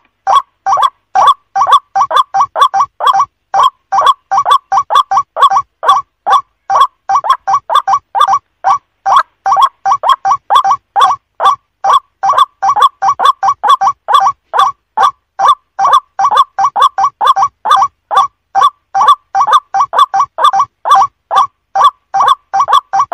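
White-breasted waterhen calling, its short notes repeated about three times a second, often in close pairs, without a break.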